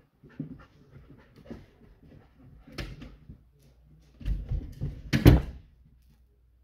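Scattered light knocks and shuffling movement in a room. A few heavy thumps come about four seconds in, then one loud sharp thump just after five seconds.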